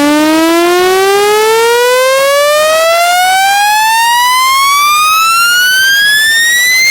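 Speaker-cleaning frequency sweep: a loud, buzzy electronic tone rising steadily in pitch, played to vibrate dust or water out of a loudspeaker.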